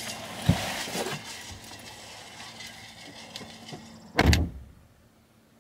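Rustling and a few light knocks of someone moving about inside a car, then a car door shutting about four seconds in.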